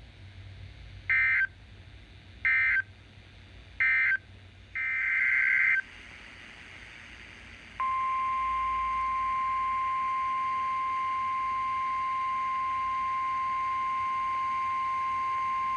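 NOAA Weather Radio alert signalling: three short, harsh SAME digital data bursts about a second apart and then a longer one, followed about 8 seconds in by the steady 1050 Hz warning alarm tone that announces a new warning.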